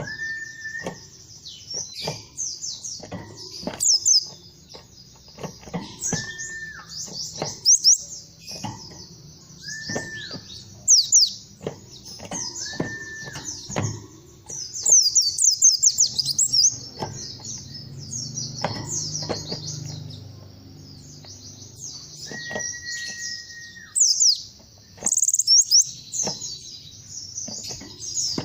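Pleci (white-eye, Zosterops) singing: fast, high twittering chirps in bursts. A flat, steady note lower down, each about a second long, comes five times.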